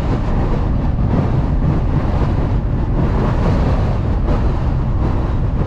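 Strong wind rushing against a moving semi truck's cab, heard from inside the cab over the steady low rumble of the road and engine.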